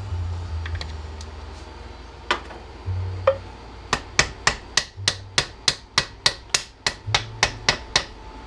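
Hammer striking a stripped Black & Decker drill to knock out an aluminum part. A couple of separate blows come first, then a steady run of about four sharp strikes a second.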